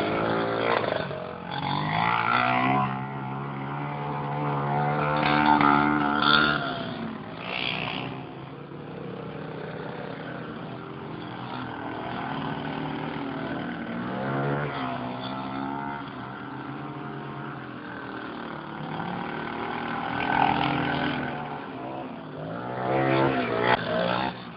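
Small ATV (quad bike) engine running and revving, its pitch rising and falling again and again as the quad rides around on sand.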